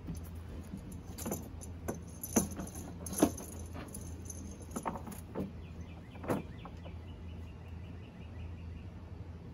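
Small pulley and rope rigging on a wooden canoe leeboard being handled and pulled, giving a scattered series of light clicks and clinks of hardware, the loudest about two and three seconds in.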